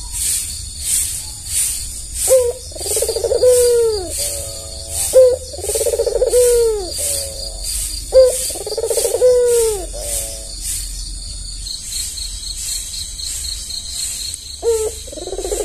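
Albino puter (white ringneck dove) cooing: a rolling coo phrase repeated four times, about three seconds apart, with a longer pause before the last. A steady high chirping pulses behind it about three times a second.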